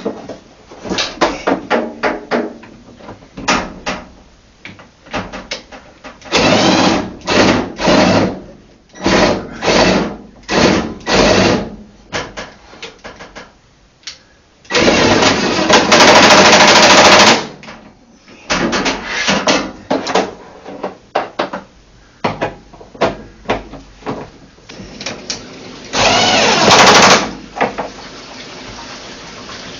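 Power driver running in short bursts of about half a second, with one longer run of a couple of seconds midway and another near the end, driving in the bolts that join the washer's two tub halves. Clicks and clatter of parts sound between the runs.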